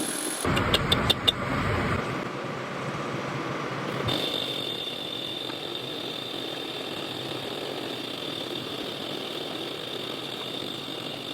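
A machine motor running in a metal shop. About a second in there is a low rumble with four quick sharp clicks; from about four seconds a steady high whine holds over an even mechanical hiss.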